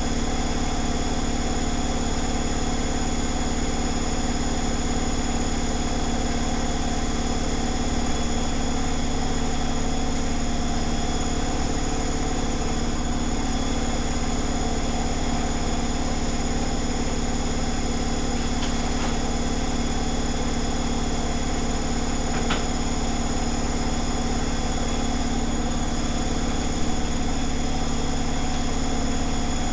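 Zanussi ZWG7160P washing machine spinning an unbalanced load at a held-back speed of about 1000 rpm: a steady motor and drum hum with a few faint ticks.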